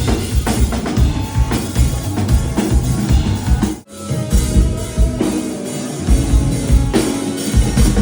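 Live rock band playing, with a drum kit's kick and snare loud over bass and other instruments, during a sound check. The music breaks off for an instant about four seconds in, then carries straight on.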